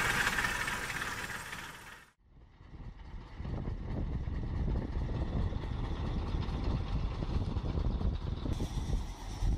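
Crawler bulldozer's engine and cable plough working, which fades and cuts off about two seconds in; after a brief gap, a heavy truck's engine runs with a deep, low sound while the truck sits bogged in slush and mud.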